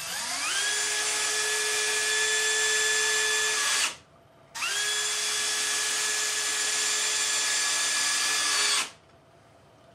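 Hilti cordless driver driving screws into a wooden 2x4. The motor spins up with a rising whine and runs steadily for about four seconds, stops briefly, then spins up and runs again for about four more seconds.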